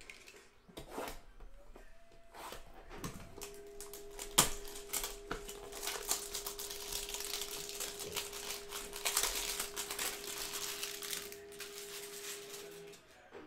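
Plastic shrink-wrap being torn off a trading-card hanger box and crinkled by hand, with sharp clicks and a loud snap about four seconds in. A faint steady tone holds underneath from a few seconds in until near the end.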